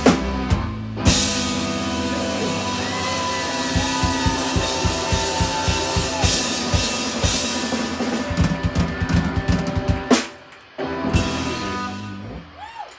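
Live instrumental rock band (guitar and drum kit) playing, with rapid bass-drum hits from about four seconds in. The band cuts off suddenly about ten seconds in, strikes one last hit, and the instruments ring out and fade as the song ends.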